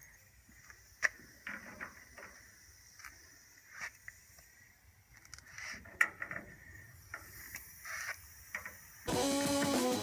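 Scattered light clicks and taps with quiet gaps between them, then strummed guitar music starts abruptly about nine seconds in.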